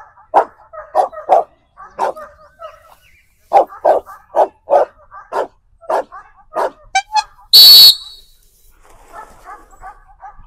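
A dog barking repeatedly, sharp single barks in quick runs with a few higher yips near the end. About three quarters of the way through, a loud whistle blast lasts about half a second and is the loudest sound.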